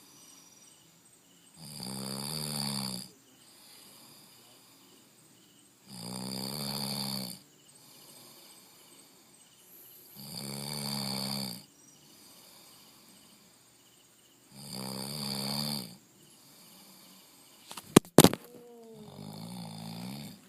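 A person snoring heavily: four loud, rasping snores on the in-breath, each about a second and a half long and about four seconds apart. Near the end come two sharp clicks, then a weaker snore.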